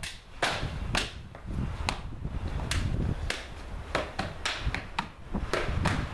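Sharp hand slaps and strikes of a Kenpo form done at speed, about ten irregular cracks over a few seconds. Hard-soled shoes scuff and stamp on a concrete floor, with a low steady rumble underneath.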